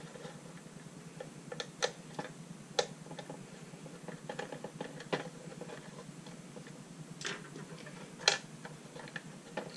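Irregular small clicks and taps of a small screwdriver and plastic parts as the battery-compartment cover of an automatic playing card shuffler is unscrewed and AA batteries are handled. The sharpest click comes about eight seconds in.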